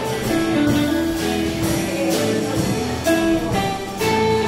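Live band playing: electric guitars carrying a melody of held notes over bass guitar and a drum kit keeping a steady beat.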